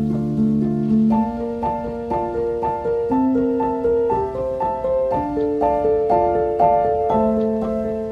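Gentle background music played on a piano or electric piano: a steady flow of sustained notes, several a second, over held chords that change about a second in.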